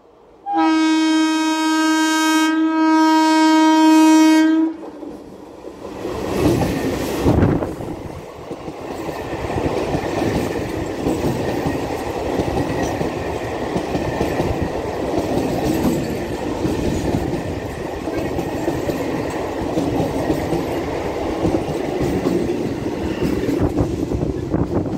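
Conventional EMU electric suburban train sounding one long horn blast of about four seconds, then passing close by with continuous wheel-on-rail rumble and clattering over the rail joints.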